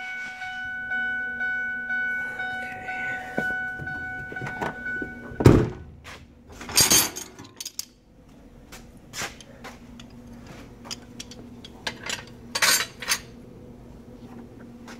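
A steady high whine with several overtones runs and stops about five seconds in, then a single heavy thunk, followed by scattered rustling, clicks and clatter of handling.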